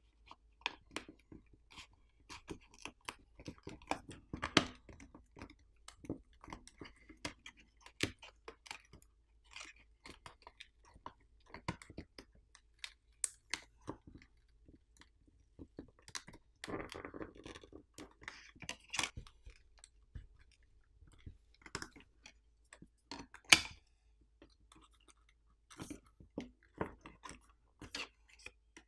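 Crackling and clicking of the glued-down screen of a Samsung Galaxy S24 Ultra being pried off its frame with a plastic card wedged under its edge, the adhesive separating bit by bit. One louder snap comes about two-thirds of the way through.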